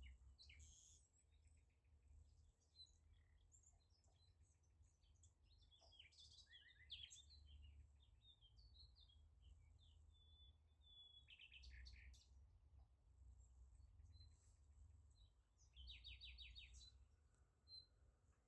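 Faint birdsong: several birds chirping and trilling in quick, high, rising and falling notes over a low rumble.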